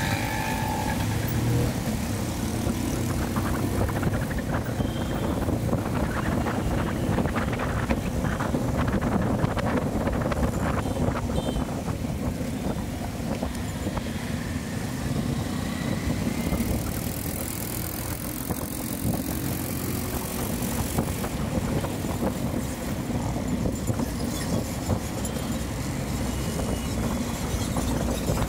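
Bajaj CT100 motorcycle's single-cylinder four-stroke engine running steadily while it is ridden, amid the noise of surrounding road traffic.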